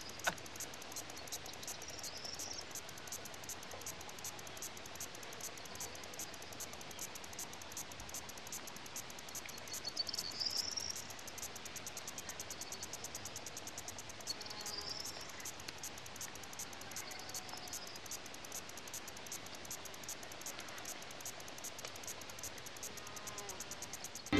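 Crickets chirping in a fast, even pulse over a low hiss, with a few faint higher chirps, the clearest about ten seconds in.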